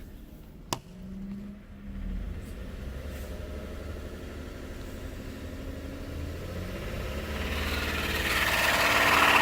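A 2002 Nissan Maxima's 3.5-litre V6 idling, then revved up from about six seconds in, getting steadily louder to the end. The owner suspects a rod knock in this engine.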